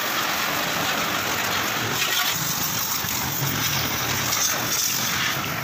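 High-pressure water jet from a pressure-washer hose spraying against an SUV's sheet-metal rear body and wheel arch, a steady hiss of spray, blasting off caked mud.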